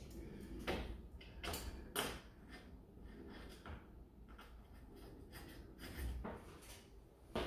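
Irregular scrapes, rustles and light knocks of hands working the trim molding and glass of a freshly set windshield, with a few louder knocks about a second, two seconds and six seconds in.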